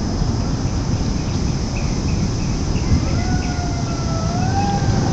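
Steady low rumble of wind and storm air with crickets chirping faintly. About three seconds in, a distant held tone begins, like a far-off horn or engine, and rises slightly near the end.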